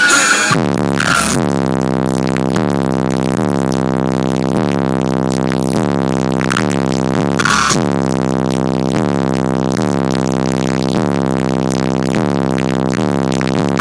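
Four 18-inch car-audio subwoofers playing a loud synthesized bass line: a low pitched note repeating in a steady, even pulse.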